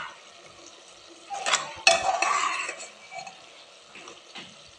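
Metal spatula scraping and clinking against the inside of a pressure cooker pot while stirring a thick rajma and potato curry, with two louder clanks about one and a half and two seconds in and lighter taps after.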